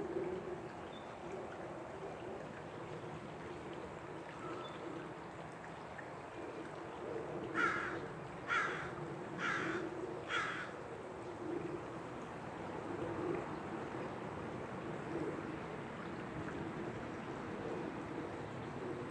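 Peafowl giving four short, harsh calls about a second apart, near the middle, over a steady low drone in the background.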